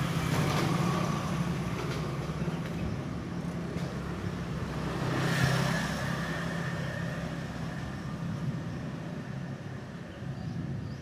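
Road traffic: a steady engine hum with a vehicle passing close, swelling louder about five seconds in and then fading.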